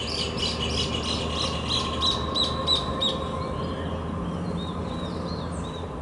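Mixed flock of chalk-browed mockingbirds and rufous horneros giving short, sharp alarm calls several times a second, thinning out and fainter after about three seconds: mobbing calls around what the birds take for a predator on the ground.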